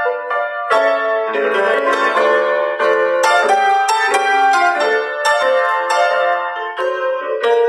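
Background music played on piano or keyboard: a melody over chords.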